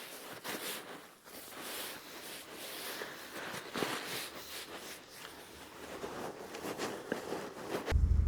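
Faint rustling and scattered light clicks, the sound of equipment being handled. Near the end a loud, steady low rumble starts abruptly.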